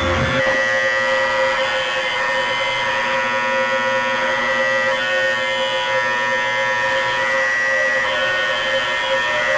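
Electronic drone: a dense cluster of held tones over one steady mid-pitched tone, with the deep bass dropping out about half a second in.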